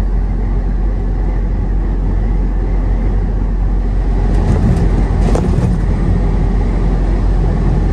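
Semi truck driving at road speed: a steady low engine drone mixed with road noise.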